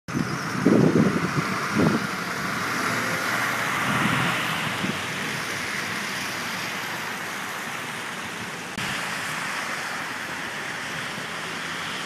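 Blizzard wind rushing steadily, with gusts buffeting the microphone in the first two seconds and again about four to five seconds in.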